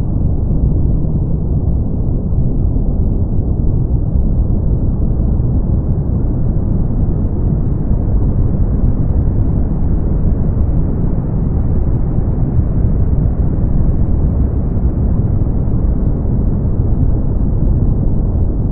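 Steady brown noise: a deep, even hiss with most of its energy in the bass and almost nothing above about 2 kHz, unchanging in level.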